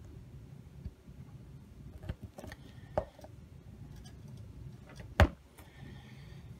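Small metal clicks from pliers pushing a tiny model-railroad spike into a wooden tie beside the rail: a few sharp ticks, the loudest just after five seconds in.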